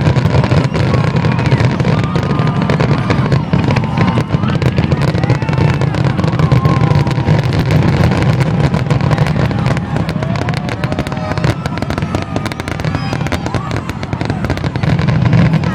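Fireworks grand finale: a dense, continuous barrage of rapid bangs and crackles over a steady low rumble, with no let-up.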